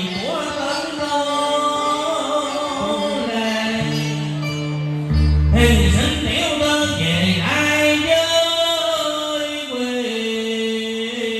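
Cải lương (Vietnamese reformed opera) music: a voice singing in long, gliding phrases over sustained instrumental accompaniment, with a deep low note swelling about five seconds in.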